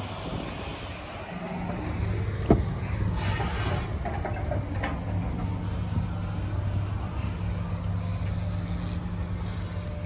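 Steady low hum of an idling truck engine. About two and a half seconds in comes the sharp click of a semi-truck cab door latch, then a brief swish and a second click as the driver's door swings open.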